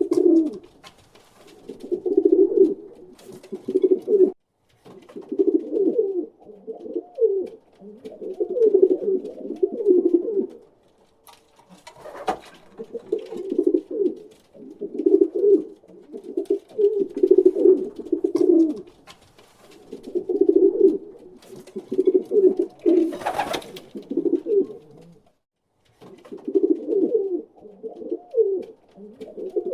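Pigeons cooing over and over: low, rolling coos in phrases every second or two with short pauses between them. A brief rustling noise comes a little over three quarters of the way through.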